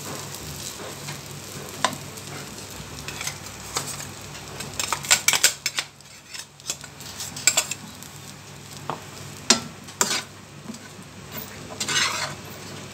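A spoon stirring and scraping diced carrots and grated coconut around a nonstick frying pan, with irregular clicks and scrapes against the pan. A light sizzle runs underneath.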